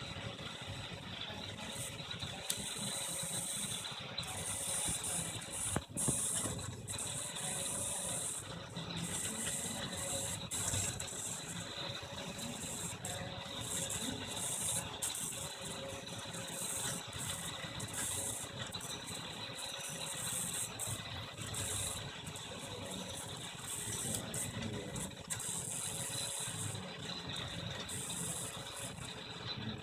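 Up Plus 3D printer printing: its stepper motors whir and change pitch in short irregular moves as the print head travels, over a steady fan hum.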